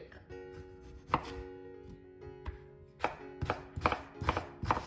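Kitchen knife slicing raw potatoes on a wooden cutting board: a single cut about a second in, then a quick run of cutting strikes against the board in the last two seconds.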